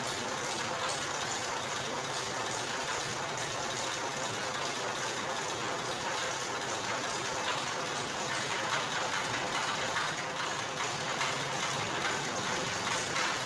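Motor-driven sugarcane processing machine with rollers and gears running steadily, a dense, even mechanical rattle and whir.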